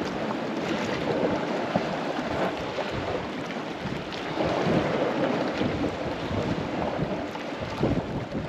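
Sea waves surging and washing against a rocky cliff shore, swelling louder a few times, with wind buffeting the microphone.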